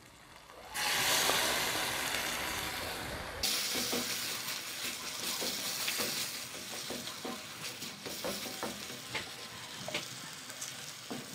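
Diced raw chicken breast going into hot melted butter in a metal pan: a loud frying sizzle starts about a second in. The sizzle goes on, weaker, with scattered scrapes and knocks of a wooden spatula stirring the pieces against the pan.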